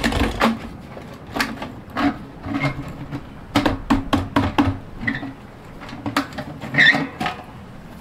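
Irregular knocks and clanks of a steel drum's metal lid being worked loose around its rim and lifted off, with some low ringing from the drum.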